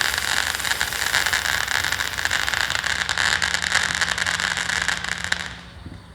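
A lit firework hissing and crackling densely and steadily, then dying away about five and a half seconds in.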